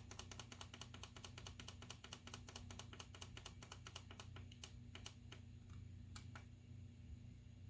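Rapid run of small plastic clicks, buttons or keys pressed over and over at several a second for about five seconds, then a few scattered single clicks, over a steady low hum.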